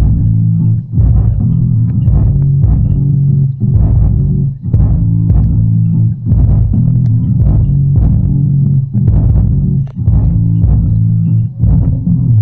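Music with a prominent plucked bass line, its weight in the deep bass, played back through the Martin Roland MSW 910 10-inch active subwoofer.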